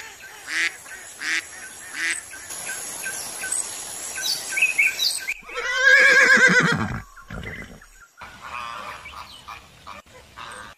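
A run of animal calls. Mallard quacks come first, then a loud, quavering horse whinny about six seconds in that falls off at the end and is the loudest sound. Faint flamingo honking follows near the end.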